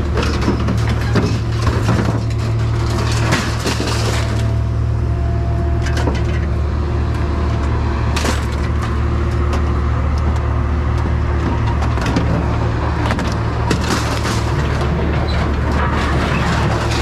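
An engine running with a steady low hum, with scattered knocks and clanks of metal over it.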